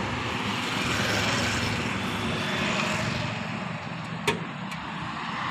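Road traffic passing: motorcycles and cars going by on a highway, a steady rush that swells about a second in and eases later. Two short clicks a little past four seconds in.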